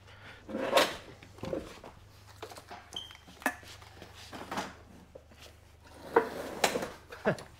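Metal knocks and clunks of a Honda B16 engine being manhandled and dragged off a wooden pallet, with shuffling feet: several separate thuds, the loudest about a second in.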